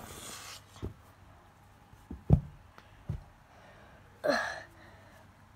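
Quiet handling noise with three soft thumps, the loudest a little after two seconds in, then a short breathy gasp about four seconds in.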